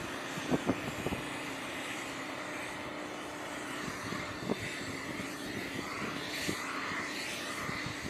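A steady mechanical drone with a constant low hum, broken by a few scattered knocks.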